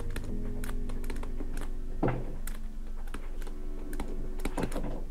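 Kobo Stylus tip writing on the Kobo Elipsa's screen: a quick run of light clicks and scratches as the letters are drawn, with louder knocks about two seconds in and near the end. Background music plays underneath.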